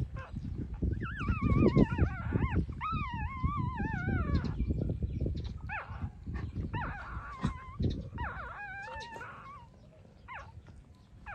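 Three-week-old puppies whining while nursing: high, warbling cries that waver in pitch, a long run of them in the first few seconds, then shorter whines later, over a busy low rustle of movement.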